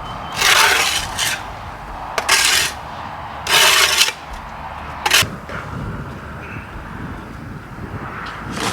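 Dirt being scraped off the bottom of an empty duck pond: about five short scraping strokes in the first five seconds, then quieter scuffing.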